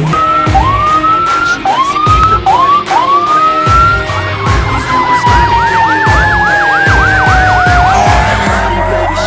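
Fire engine sirens: four short rising whoops, then a fast yelp, about four cycles a second, over a long wail that slowly falls in pitch, with a new tone starting to rise near the end.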